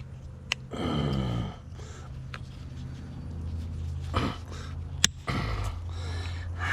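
A pig's single drawn-out grunt, falling in pitch, about a second in. A few sharp clicks follow, all over a steady low hum.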